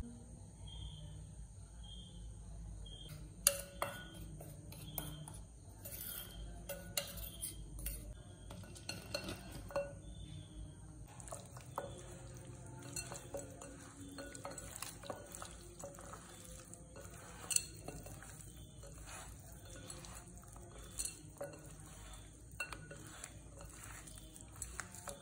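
Clinks and knocks against a glass mixing bowl as spices and raw chicken pieces go in, then a hand working the chicken into the spice powder with soft handling noises and taps on the glass. The sharpest clinks come about three and a half seconds in and again about halfway through.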